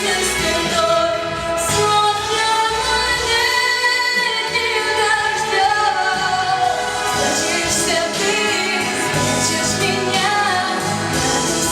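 A female voice singing long held, gliding notes over a pop backing track.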